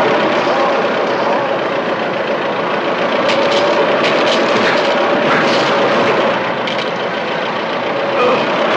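An engine running steadily under heavy hiss, with a few short sharp knocks in the middle.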